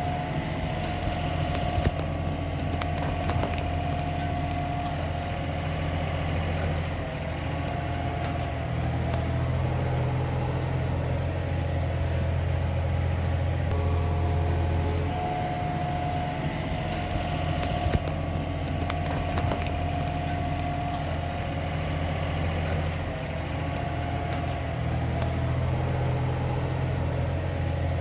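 An engine running steadily, a low drone that shifts slightly in level a few times, with a few light clicks over it.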